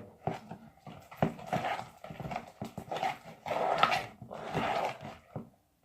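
Sticky slime being kneaded and squeezed by hand, giving wet squelches and a run of sharp sticky pops and clicks.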